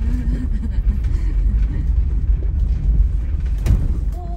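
Low rumble of a light-truck camper rolling slowly down a steep, rough lane, heard from inside the cab, with creaks from the camper body and a sharp knock near the end.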